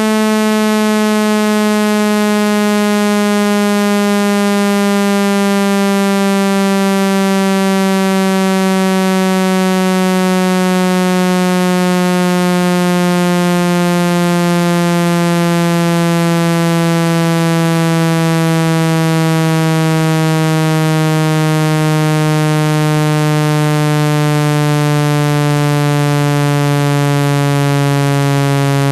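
Electronically generated speaker-cleaning tone, a harsh buzzing note played to vibrate water out of a phone speaker, sliding slowly and steadily down in pitch.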